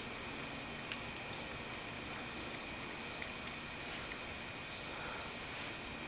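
Tropical rainforest insects droning in one steady, high-pitched chorus.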